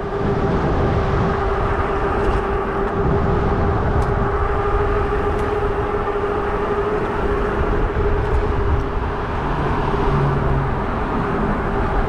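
Fat-tyre e-bike coasting downhill, with wind buffeting the microphone over the hum of the fat tyres on the road. A steady hum holds at one pitch.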